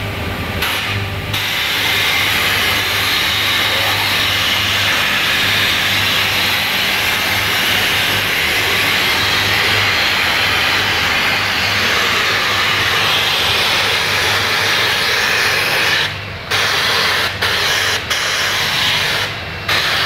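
Super Gun SG220 compressed-air vacuum blow gun running steadily with a loud air hiss, sucking plastic pellets off the floor into its cloth bag. The air cuts out briefly about a second in and a few times near the end.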